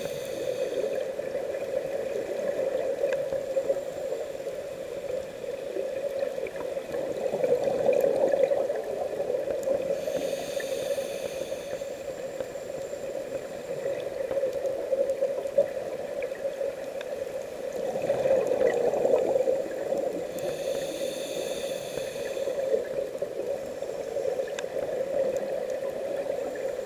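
Scuba diver breathing through a regulator, heard underwater. A hissing inhale comes about every ten seconds, three times, and louder bubbling exhales fall between them, over a steady low hum.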